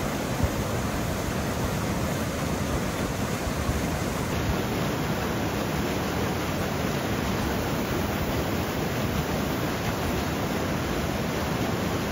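Steady rushing of a mountain stream pouring over a low concrete weir into a pool, an even white-water hiss without breaks.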